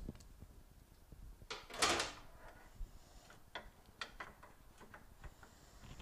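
Metal handling sounds from a replacement car hood latch being worked into position: a brief scraping rattle about two seconds in, then a few scattered light clicks.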